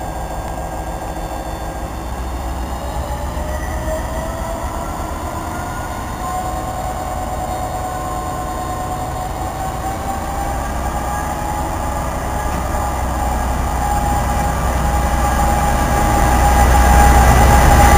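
Class 57 diesel locomotive pulling away with its train. The engine's note rises in a whine over several seconds under a steady low rumble, and grows louder as the locomotive and its coaches draw alongside.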